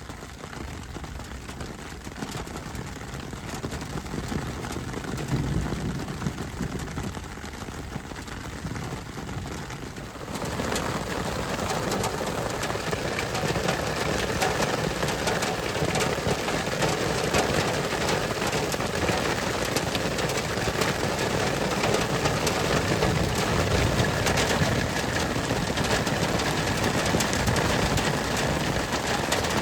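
Thunderstorm rain, falling lightly with a low rumble at first, then turning suddenly into a heavy downpour about ten seconds in that keeps up steadily.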